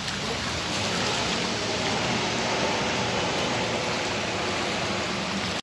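Steady rushing hiss of rain and floodwater, with no distinct splashes.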